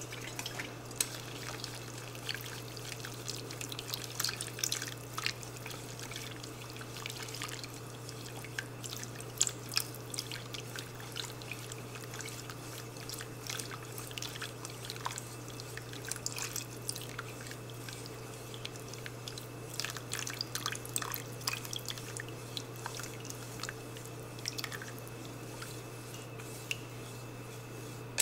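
Ketchup-based ankake sauce with shimeji mushrooms simmering in a frying pan, bubbling with many small irregular pops and drips, stirred with chopsticks in the second half. A steady low hum runs underneath.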